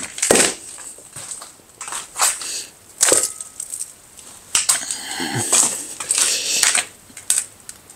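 Pieces of a broken concrete block being handled on a concrete floor: a few gritty knocks and scrapes of concrete on concrete, then a longer stretch of scraping and grinding about halfway through.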